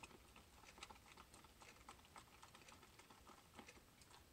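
Faint, irregular light clicks and taps of a spatula stirring thick soap batter in a plastic measuring cup.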